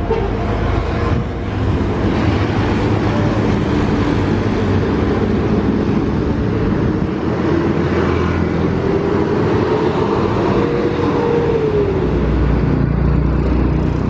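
Large road vehicles passing close by on a main road: steady engine rumble and tyre noise. One engine note rises for a few seconds and then falls away near the end.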